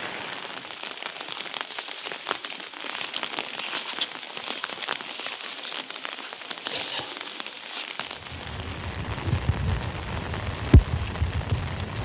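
Rain falling, with many individual drops tapping on a surface. About eight seconds in a low rumble joins the rain, and there is one sharp knock near the end.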